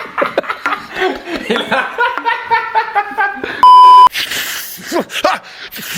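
Voices making short pitched vocal sounds mixed with laughter, cut by a loud, steady censor bleep at one high pitch for about half a second, about three and a half seconds in.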